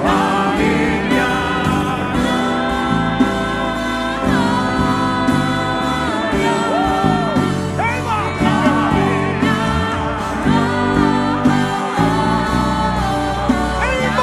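Gospel worship music: voices singing over an instrumental backing.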